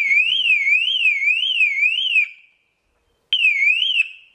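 Car alarm siren wailing: an electronic tone sweeping up and down a little under twice a second. It stops a little after two seconds in, then sounds again briefly near the end.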